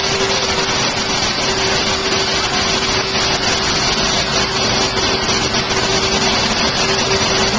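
Loud, steady whir of electric blower motors from soot-cleanup equipment, with one constant whine held throughout.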